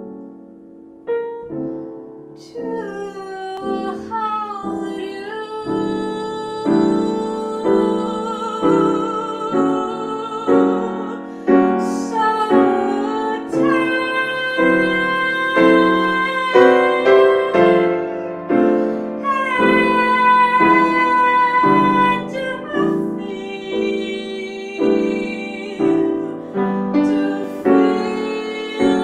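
A woman singing with grand piano accompaniment: a sung melody, held notes wavering with vibrato, over repeated piano chords.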